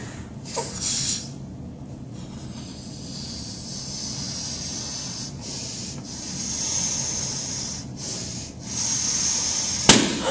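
A rubber balloon being blown up by mouth in several long breaths: a steady airy hiss with short pauses between breaths. A sharp click sounds near the end.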